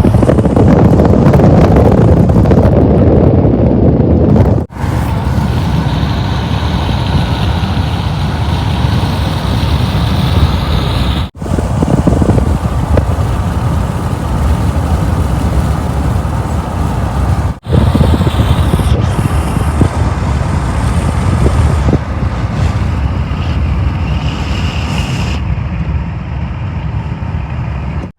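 A train rolling past with a steady, loud rumble of wheels on rails, cut into several clips.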